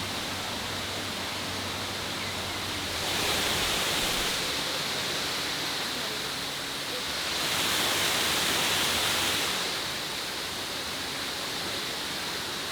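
Steady rush of falling water from a waterfall, swelling louder twice, once about three seconds in and again around eight seconds in.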